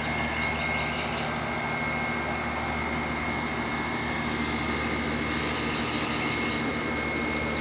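Steady mechanical hum and hiss with a thin, high whine held throughout, unchanging, as from a machine running continuously.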